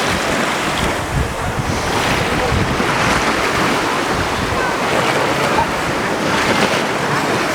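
Sea surf washing onto the beach, a steady loud rush of waves, with wind buffeting the microphone.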